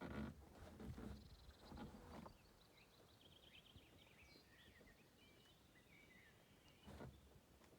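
Faint bird song, a run of short high chirps, over quiet outdoor ambience. There are a few soft noisy bursts in the first two seconds and one more near the end.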